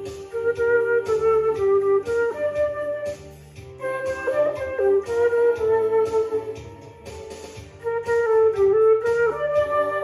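Concert flute playing a song melody in its low register, in three phrases with short breaths between them. Behind it a backing track keeps a repeating bass line and a steady beat.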